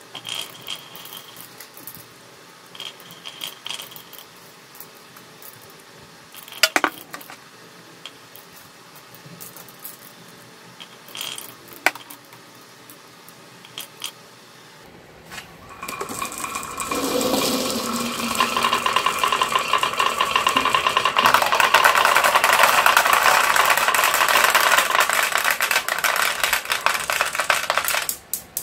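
Marbles clicking now and then against wood and each other as the top of a wooden wavy marble slope is filled. About halfway in this gives way to a long, loud, continuous clatter as many marbles roll down the zigzag wooden track and pour into a plastic toy dump truck's bed.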